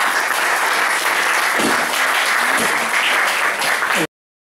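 Audience applauding steadily, cut off suddenly about four seconds in.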